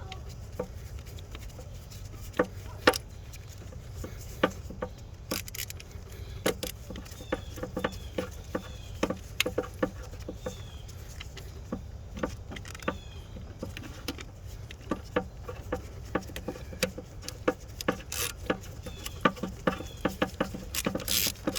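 Irregular small metallic clicks and taps from hand tools and screws as the camshaft position sensor's screws are fitted back into the distributor.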